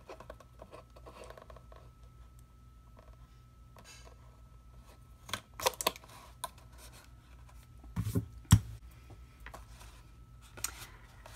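A cardstock box being handled on a craft mat: quiet scattered clicks and rustles, with two sharp knocks close together about eight seconds in.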